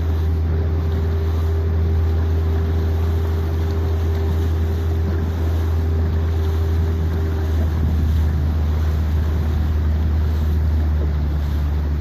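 Motorboat engine running steadily, a deep constant drone, with a faint higher tone over it that stops about seven seconds in, and wind and water hiss.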